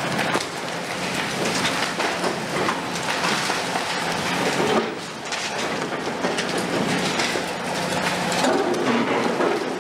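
Concrete cracking and crunching as a CAT 352F long-front demolition excavator's jaws bite through a building's upper floors, with rubble clattering down. Underneath runs the steady hum of the excavator's Cat C13 diesel engine working under load.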